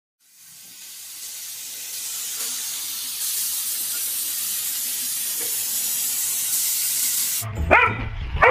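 A steady high hiss that fades in over the first couple of seconds and cuts off suddenly. Near the end a dog yips and barks over music with a low beat.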